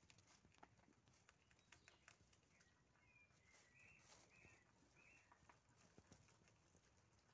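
Faint, irregular crunching clicks of young rabbits nibbling and chewing fresh grass blades. A few short, faint high chirps come through near the middle.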